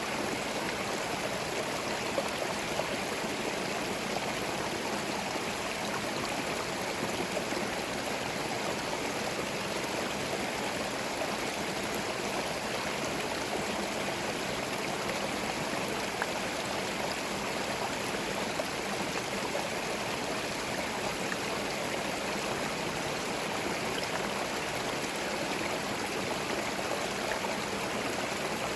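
A small forest stream running steadily over stones, babbling and gurgling with no birds or other sounds.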